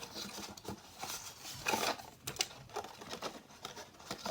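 Hands handling small plastic toys and their packaging: irregular rustling with scattered light clicks and taps.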